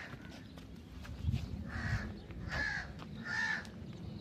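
A crow cawing: three or four short, harsh calls about three-quarters of a second apart, with a low rumble around the first of them.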